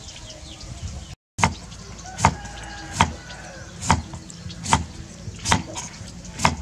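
Kitchen knife slicing a cucumber on a wooden chopping board: the blade knocks sharply on the board seven times, about one cut every 0.8 seconds. Before that, a moment of steady background noise cuts off about a second in.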